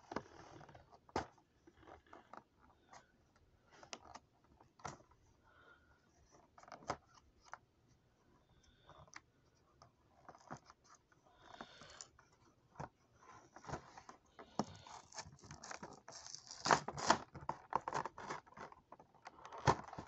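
Cardboard and plastic blister packaging of a Matchbox 5-pack being handled and worked open by hand: scattered clicks, scratches and scrapes. They grow busier and louder over the last few seconds.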